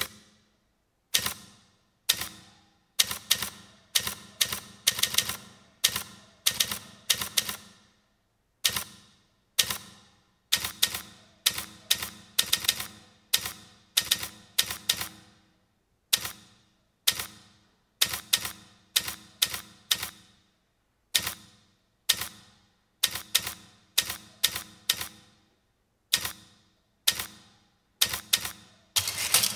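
Typewriter keys clacking in uneven runs of strokes with brief pauses between them, each strike ringing briefly.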